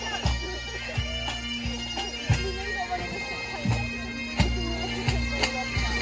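Bagpipes playing a tune over a steady drone, with a drum keeping a regular marching beat.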